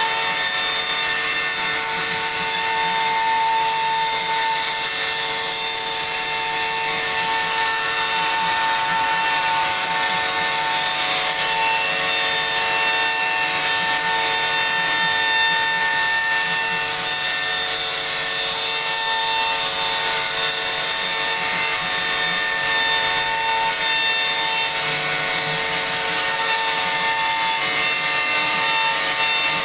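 CNC router carving a wooden door panel: the spindle runs with a steady high whine over the continuous rasp of the cutter milling grooves in the wood.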